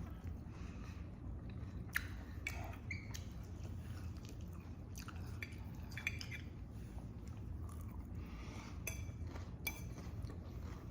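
A person eating quietly: soft chewing with scattered small clicks of cutlery against a plate, over a low steady hum.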